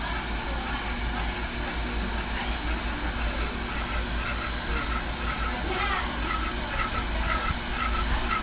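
On-car brake lathe running, spinning a Toyota Tacoma brake rotor with a steady hum and hiss. From about six seconds in, a short high chirp repeats about twice a second, as the cutting tips, set to barely touch, catch the rotor once each turn.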